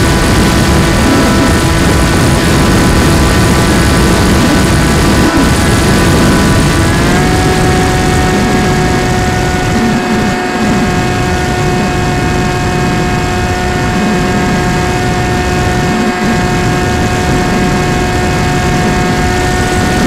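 FPV model airplane's motor and propeller running at a steady pitch, which steps up slightly about seven seconds in as the motor speeds up, with wind rushing over the onboard microphone.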